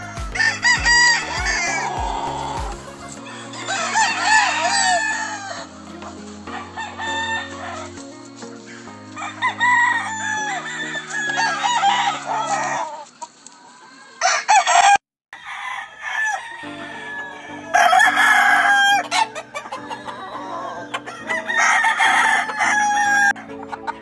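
Game chickens crowing and clucking in repeated bouts, over background music with a stepping bass line. The sound cuts out briefly about fifteen seconds in.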